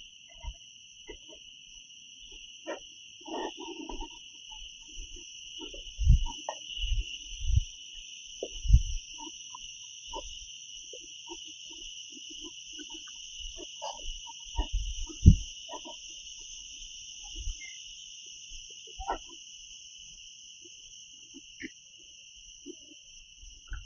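Forest insects calling in a steady, unbroken high-pitched drone at two pitches. Over it come a few dull low thumps and small rustles, the loudest about two-thirds of the way through.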